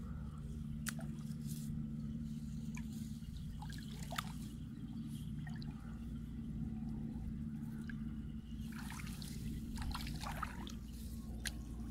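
Shallow muddy paddy water trickling and dripping in small splashes as hands move in and out of it, busier near the end. A steady low hum runs underneath.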